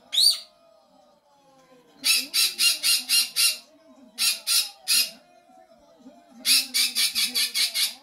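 A small conure squawking: one rising call at the start, then runs of short squawks about five a second, six in a row about two seconds in, three more around the middle, and a run of about nine near the end.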